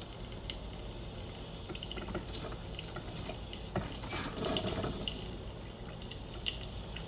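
Drip coffee maker brewing: water gurgling and dripping, with scattered small pops and clicks over a steady hiss.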